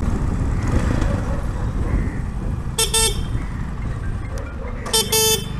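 X-torque 250 motorcycle engine running at low riding speed, with short horn toots about three seconds in and again near the end.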